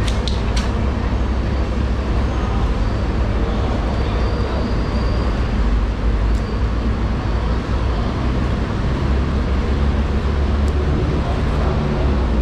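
Steady low rumble of running machinery, with a few sharp clicks right at the start.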